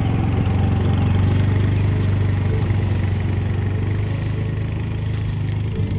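Small four-wheeler ATV engine running steadily as it drives off across the grass, gradually getting quieter as it pulls away.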